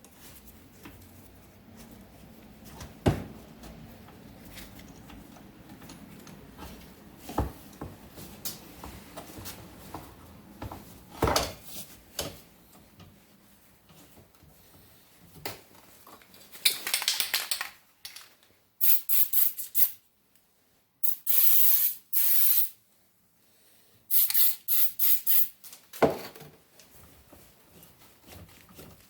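Metal clinks and knocks from hand tools and a valve spring compressor working on a Volkswagen Type 1 cylinder head. In the second half come four short hissing spray bursts, each a second or two long.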